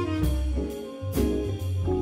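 Jazz quartet of tenor saxophone, electric guitar, Hammond organ and drums playing, with a cymbal hit about a second in.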